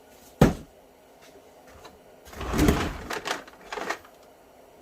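Handling noises while unpacking a shop vacuum and its parts: one sharp knock about half a second in, then a scraping rustle of parts and packaging, ending in a couple of short clicks.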